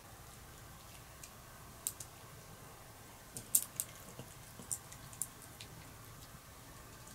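Pomeranian gnawing on a hard sweet-potato-and-duck-meat chew stick: irregular sharp crunching clicks of teeth on the dried treat, the loudest about halfway through.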